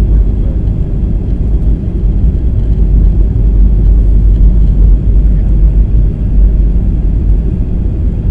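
Steady low rumble of a jet airliner's engines and airflow, heard from inside the passenger cabin during the landing approach with flaps extended.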